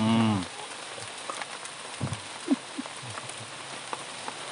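Light drizzle falling on the surrounding foliage: a steady hiss with scattered drip ticks.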